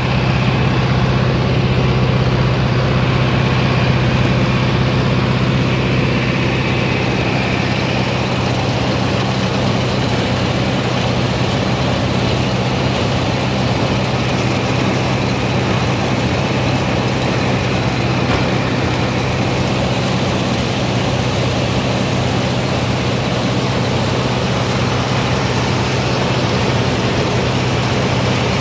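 Tractor engine running steadily at a constant speed, with the mechanical whir and rattle of a New Idea two-row corn picker-sheller working behind it.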